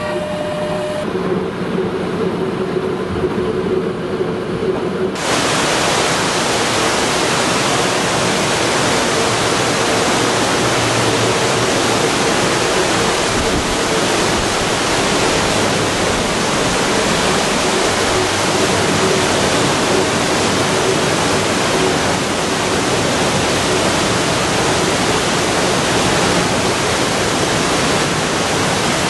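Historic electric train locomotives humming steadily as they pass for about five seconds, then a sudden cut to the loud, even rush of a mountain waterfall and torrent, with a faint train hum under it for a while.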